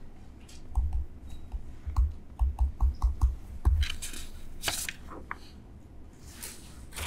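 Pen-stylus tapping and scratching on a tablet screen during handwriting: a quick run of light taps with dull knocks, then a few short scratchy strokes.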